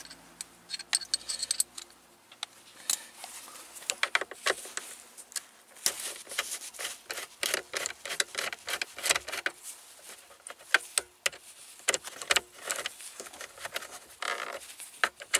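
Small metal socket on a hand driver clicking and rattling as the screws of a plastic dashboard trim panel are undone: many short, irregular clicks and clinks.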